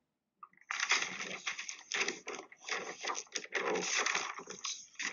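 Sheets of drawing paper rustling and crackling as they are handled and turned close to a laptop microphone, in a series of irregular bursts, heard through video-call audio.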